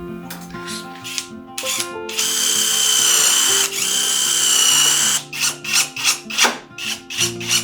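Power drill running for about three seconds with a steady high whine, briefly easing off and picking up again partway through. Afterwards comes a quick series of short scraping strokes.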